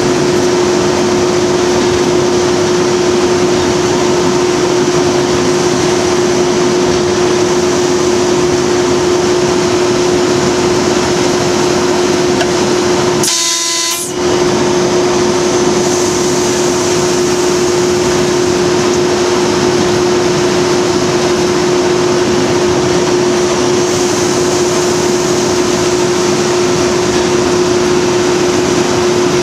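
BR Class 37 diesel-electric locomotive running along the line, heard from its cab: a loud, steady engine drone with a strong steady hum, mixed with running noise. A brief break cuts in about halfway through.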